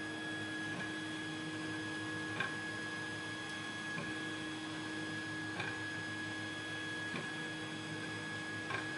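A steady electrical hum, with a faint light click about every second and a half.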